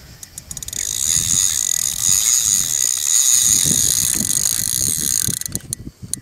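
Drag of a large carp spinning reel buzzing in a fast run of clicks as a hooked fish pulls line off the spool, stopping about five seconds in.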